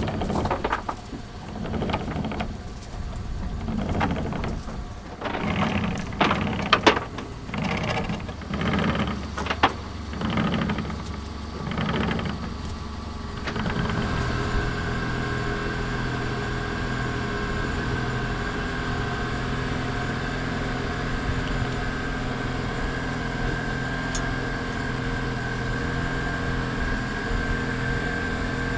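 Anchor chain being hauled aboard in a run of pulls about every second and a half, then from about halfway a small boat engine running steadily with a constant whine.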